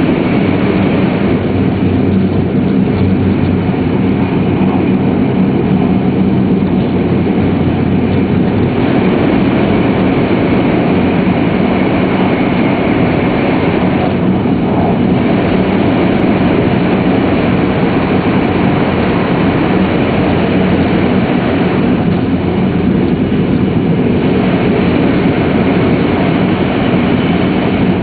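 Shinkansen running at high speed, heard from inside the passenger cabin: a steady, loud deep rumble with a faint low hum. The train passes out of a tunnel onto open track.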